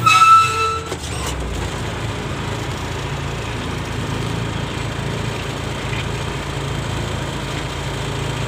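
Truck's diesel engine running steadily, heard from inside the cab as a low drone. In the first second there is a brief, louder high tone.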